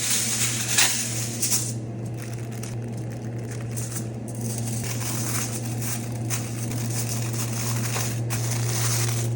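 Aluminium foil crinkling and crumpling as it is folded and wrapped around a parchment-paper food packet, over a steady low hum.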